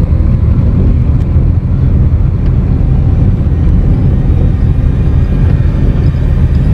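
Car engine and tyres rumbling steadily while driving slowly over a rough, cracked road, heard from inside the cabin.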